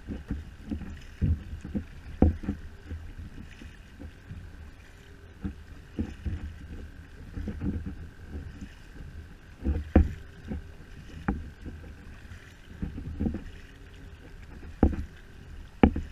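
Kayak paddling: a double-bladed paddle dipping and pulling through the water in an uneven run of strokes, each a low splash or thud, with a few sharp knocks against the plastic sit-on-top kayak.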